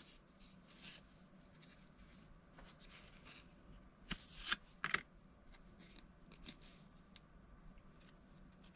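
Plastic toy cards handled and slid against each other in rubber-gloved hands: faint rustling with a few sharp clicks and scrapes near the middle.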